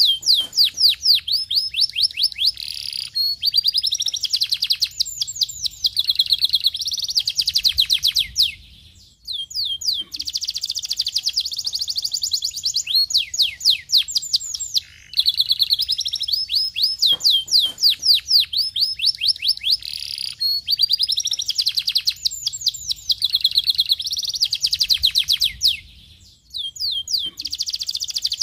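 Domestic canary singing a long, fast song of rolling trills and quick rising and falling whistles, broken by a few brief pauses.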